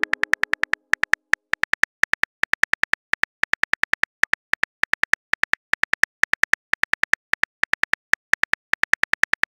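Phone on-screen keyboard key clicks, one short sharp tick for each letter typed, in a rapid uneven run of about six a second.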